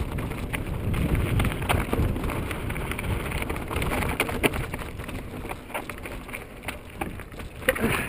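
Mountain bike rolling fast down a rocky trail: tyres rumbling and the bike rattling with frequent sharp knocks over rock and loose stones, under steady wind buffeting on the mounted camera's microphone.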